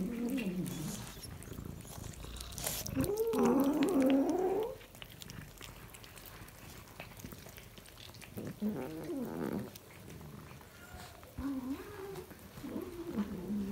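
Domestic cat making low, wavering, drawn-out calls, about five in all, the longest and loudest lasting over a second about three seconds in.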